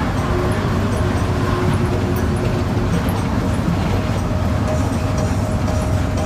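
Mercedes-Benz four-cylinder bus engine running with road noise, heard from inside the moving bus: a steady low rumble.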